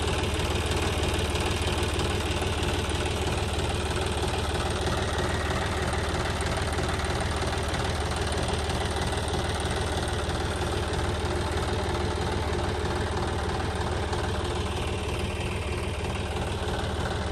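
John Deere 5050E tractor's three-cylinder diesel engine idling steadily while the tractor stands still, before the hitched super seeder is set to work.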